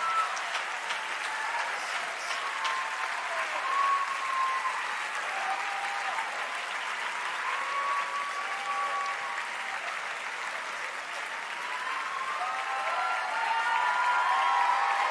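Large crowd applauding steadily, with scattered whoops and shouts over the clapping; it swells a little near the end.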